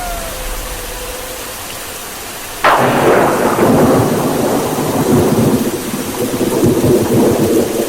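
A sudden thunderclap about two and a half seconds in, rumbling away into steady heavy rain. Before it, the last held note of the music fades under a quieter hiss.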